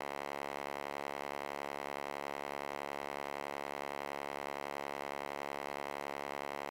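A steady electronic drone holding one unchanging chord of many sustained tones, like a synthesizer pad laid under the video as background music.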